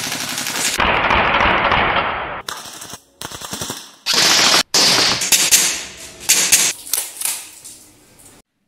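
Airsoft guns firing, with sharp shots in several short runs that cut off abruptly.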